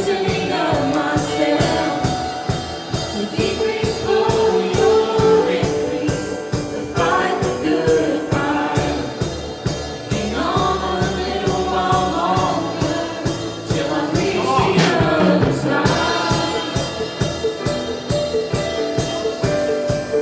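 Live gospel worship song: two women singing into microphones over keyboard, guitar and a steady beat.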